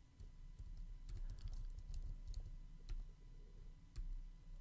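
Typing on a computer keyboard: soft, irregular keystrokes, with a cluster about a second in and single clicks later, over a low background hum.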